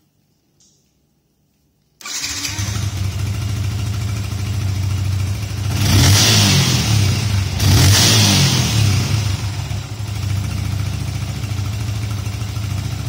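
Yamaha FZ150i's 150 cc single-cylinder fuel-injected engine starting about two seconds in, on a newly fitted aftermarket ECU. It is revved twice with short throttle blips and then settles back to a steady idle.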